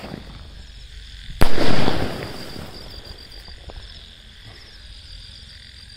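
A medium-size sky shot aerial firework bursting overhead about a second and a half in: one loud bang with a crackling tail that fades over about a second.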